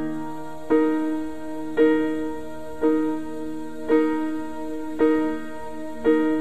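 Solo piano playing a slow ballad introduction: the same chord struck again about once a second, each strike ringing and fading.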